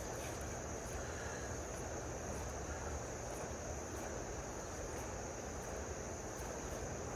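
Steady high-pitched chorus of insects, with an even low rush of creek water or wind underneath.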